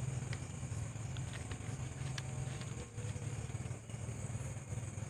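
Hands scraping and brushing loose soil, with a few small scattered clicks, over a steady low hum and a steady high hiss.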